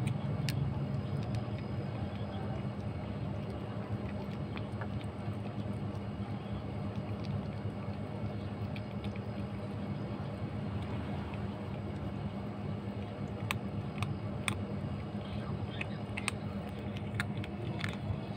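A kitten eating dry kibble from a plate, its chewing heard as small crunching clicks that come more often in the last few seconds. A steady low hum runs underneath.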